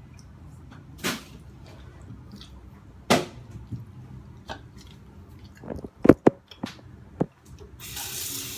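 Several separate sharp knocks and clatters, the loudest a quick pair a little past the middle. Near the end a tap is turned on and water runs steadily.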